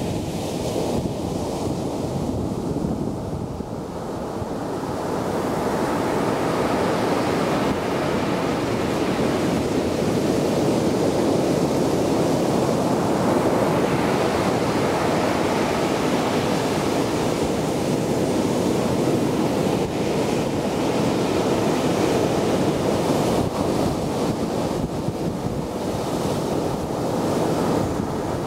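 Heavy sea surf from a typhoon swell, waves breaking and rushing up the shore in a continuous roar that swells about five seconds in, with wind buffeting the microphone.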